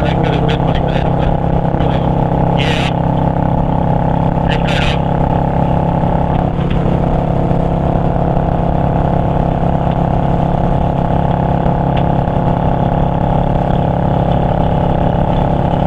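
Yamaha V-Star 650's air-cooled V-twin engine running steadily at cruising speed, heard from the rider's seat with road and wind rush. Two brief hisses come about three and five seconds in.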